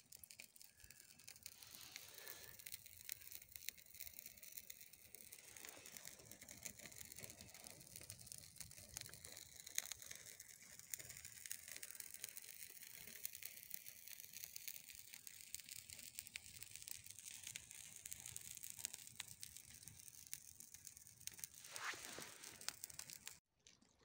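Near silence: a faint outdoor hiss with scattered small crackles and rustles, cutting off suddenly near the end.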